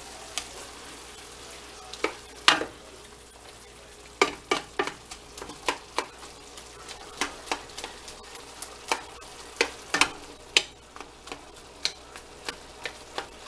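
Ground beef sizzling as it browns in a skillet, with a slotted spatula scraping and tapping against the pan as it breaks up and stirs the meat. The taps are irregular, about one or two a second, starting about two seconds in.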